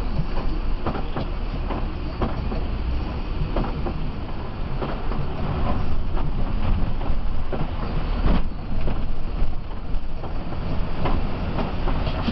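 Cabin noise inside a moving Mercedes-Benz OH 1526 coach: a steady low engine rumble, with frequent small clicks and rattles from the bodywork, driving on a wet road.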